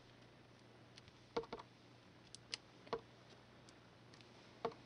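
Clear acrylic stamp block tapping on an ink pad and being pressed onto card stock: a handful of soft clicks and knocks at uneven intervals.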